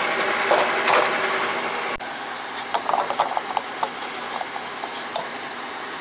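A fuel pump nozzle is handled and hung back on the pump, then a car's fuel filler cap is screwed shut with a quick run of ratchet clicks about three seconds in. Steady noise runs underneath.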